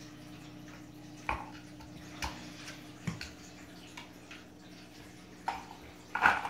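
Kittens batting at a plastic ball-track cat toy: scattered light plastic clicks and knocks, with a louder clatter near the end, over a steady low hum.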